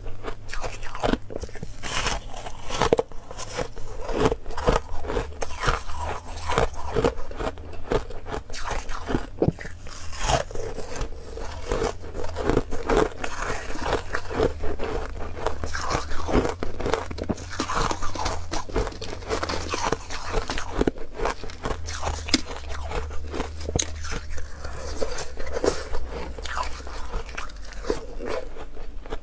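Biting and chewing of soft foam ice, many crunches in quick, irregular succession.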